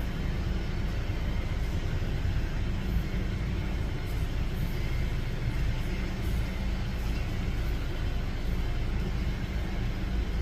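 Boeing 737-800's CFM56-7B jet engines running at taxi power, a steady low rumble.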